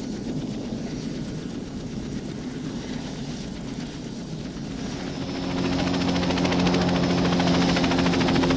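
PZL Mi-2 helicopter running on the ground with its rotor turning, the blades chopping steadily. About five seconds in it grows louder and a steady low engine hum comes in, as power comes up just before lift-off.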